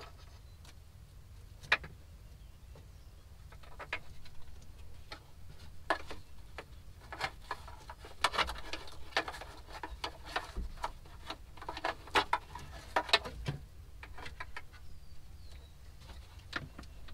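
Hard plastic console and trim pieces and wiring being handled and worked into place: scattered light clicks, taps and rattles, thickest in the middle, with a few sharper knocks about two seconds in and again a little past halfway.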